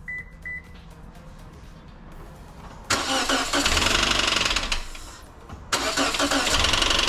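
Two short high beeps, then about three seconds in the 2014 Toyota Corolla S's four-cylinder engine starts and runs with a heavy knocking. It dips briefly near five seconds, then runs loud again. The knock is a sign of the engine's hydrolock damage.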